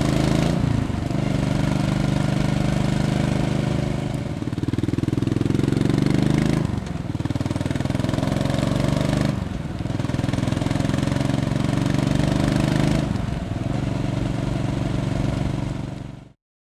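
Suzuki LS650 Savage's single-cylinder four-stroke engine running through a Silvertail exhaust, its pitch dipping briefly and climbing back about five times. The sound cuts off suddenly near the end.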